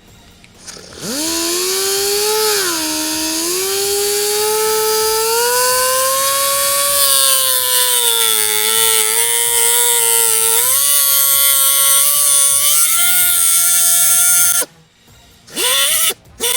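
Pneumatic cutting tool running at a high whine while cutting sheet metal, its pitch sagging and recovering as it is loaded. It stops suddenly near the end, followed by a few short blips of the tool.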